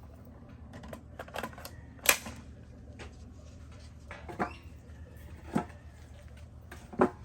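A handful of sharp knocks and clicks spread through, the loudest about two seconds in and another near the end, with a bird chirping once.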